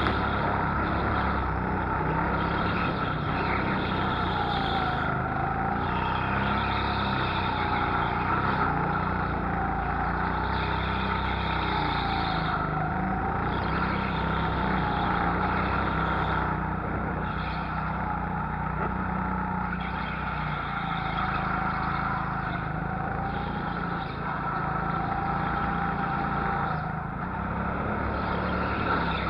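Go-kart engine running under load from on board the kart, its pitch rising and falling every few seconds as the throttle opens on the straights and eases off for the corners.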